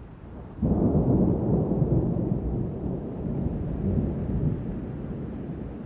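A deep rumble of thunder that starts suddenly about half a second in and rolls on, slowly fading.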